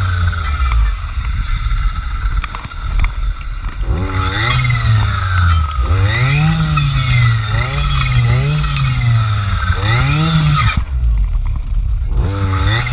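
Jonsered FC 2256 W two-stroke clearing saw with a circular blade, revved up and eased off again and again, about once a second, as it works. Near the end the throttle drops back to idle for about a second, then it revs up again.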